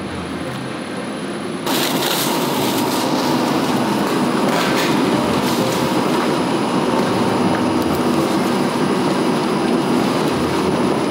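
Two-roll rubber mill running, its steel rolls kneading raw silicone rubber with a steady, dense rumbling clatter that gets louder about two seconds in.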